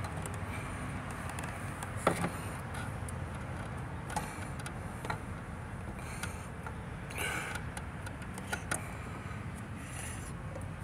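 Hands working at an engine's thermostat housing: scattered light clicks and knocks of the part being handled, the loudest about two seconds in, over a steady low rumble.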